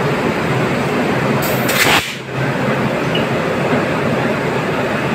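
Steady close-range running noise of a WAP-7 electric locomotive as it creeps up to a coach for coupling. A short hiss comes about one and a half seconds in.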